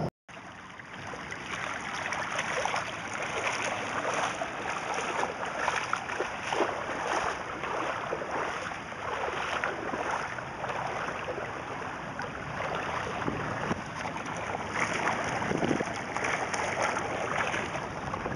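Floodwater sloshing and splashing around the legs of someone wading through it, in uneven surges about a second apart.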